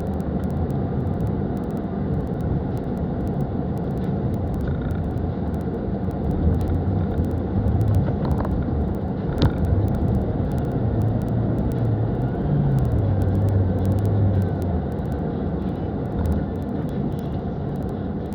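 Kia Rio's engine running under load with a constant rumble as the car works through deep snow, its pitch rising and falling in steps, with one sharp click about halfway through.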